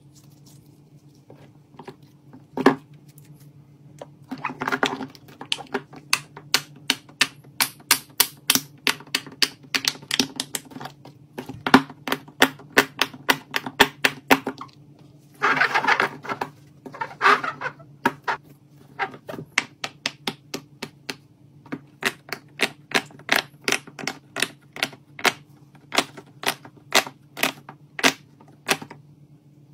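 Silicone pop-it fidget toys' bubbles pressed one after another: a long run of sharp pops, about two or three a second, with quicker flurries now and then. A steady low hum runs underneath.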